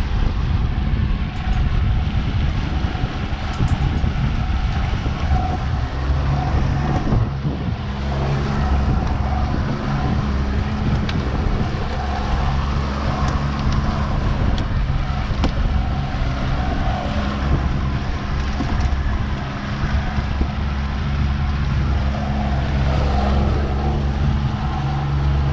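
90 hp Yamaha outboard motor running steadily at trolling speed during its lower-unit break-in, its even hum steadier from about eight seconds in, over a constant rushing noise.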